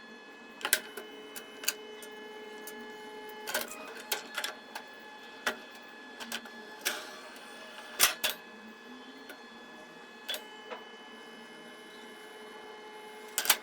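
Bambu Lab A1 3D printer with an automatic build-plate changer at work: steady motor and fan tones under irregular sharp clicks and clacks, the loudest about eight seconds in and near the end.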